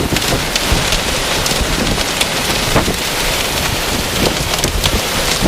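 Heavy rain in a derecho thunderstorm, with wind. It is a steady loud rush, dotted with many sharp drop strikes.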